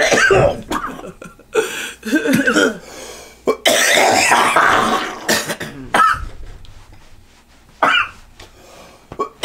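A man coughing in repeated fits with some throat-clearing, after inhaling vapor from three HHC vape pens at once. The coughs are loud at first and become fewer and quieter toward the end.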